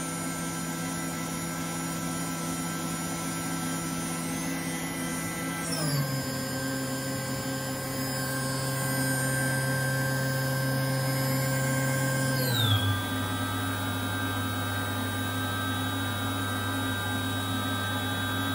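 HOMAG BOF 311 Venture 15L CNC router's electrospindle running with a steady whine, its speed stepping down twice: at about 6 s and again at about 12.5 s all its tones slide lower and then hold.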